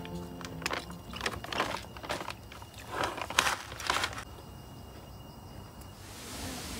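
Plastic snack packet of aloo bhujia crinkling as it is handled, in a run of irregular sharp rustles that stop after about four seconds.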